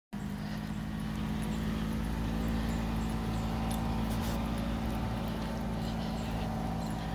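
A steady low mechanical hum, like a motor running, with faint light ticking from a dog's claws on pavement as it walks on the leash.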